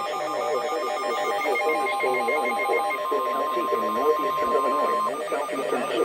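Electronic alert tones: rapid repeated beeps at several fixed pitches, with a steady tone near 1 kHz from about a second and a half in until about five seconds, over a wavering background sound.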